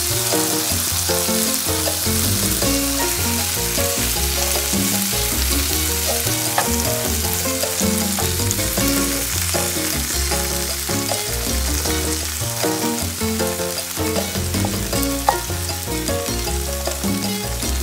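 Diced Spam, kimchi and onion sizzling steadily in oil in a nonstick frying pan while being stirred with a wooden spatula, with a couple of sharp clicks.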